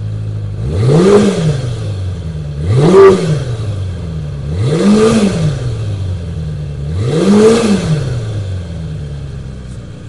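Kawasaki Zephyr 400's air-cooled inline-four idling and blipped four times, each rev rising quickly and falling back to a steady idle, a rev-response test heard from the stock muffler.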